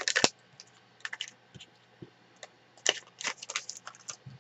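Small clicks and crinkling rustles of craft packets being handled on a tabletop. They come in short clusters: right at the start, about a second in, and a busier run about three seconds in.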